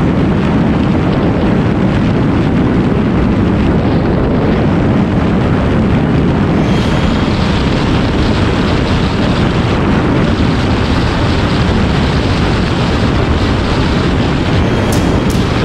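Steady, loud wind rush on the microphone of a Honda CBR 125R motorcycle at highway speed, with engine and road noise mixed in. A few light ticks near the end.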